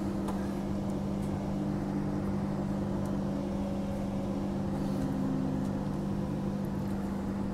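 Steady low electrical hum and running noise inside a Transperth A-series electric multiple unit train (Walkers Limited EMU) as it rolls slowly into a station.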